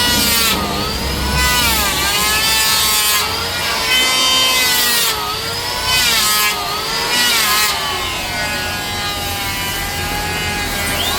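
Electric woodworking power tool cutting Bayur wood. Its motor whine repeatedly rises and dips as it takes load, with bursts of hissing cutting noise.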